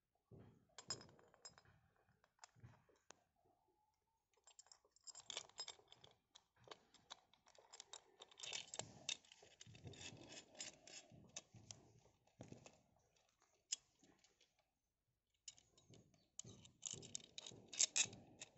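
Faint clicks, taps and scraping of small metal parts being handled: a metal chainsaw bracket and its clamp ring turned over and fitted together by hand, with two short pauses.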